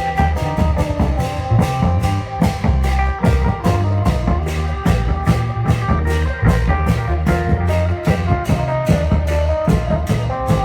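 Thai Isan klong yao long-drum band playing procession music: a fast, steady drum beat with sharp cymbal-like hits about four a second, under a continuous melody line.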